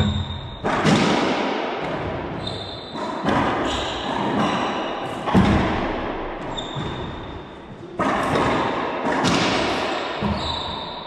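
Racquetball doubles rally: sharp cracks of racquets striking the ball and the ball smacking the court walls, about one a second, each ringing out in the enclosed court. There are brief high squeaks between the hits, and the sound fades out near the end.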